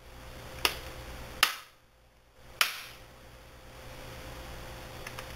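Plastic clips of a Lenovo V460 laptop's screen bezel snapping into place as the bezel is pressed on, three sharp clicks in the first few seconds.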